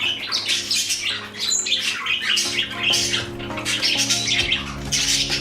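A mixed flock of pet parrots, budgerigars and cockatiels among them, chattering and squawking together in a continuous dense stream of high chirps and calls.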